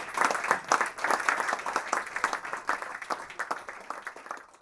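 Audience applauding, many people clapping at once, fading out toward the end.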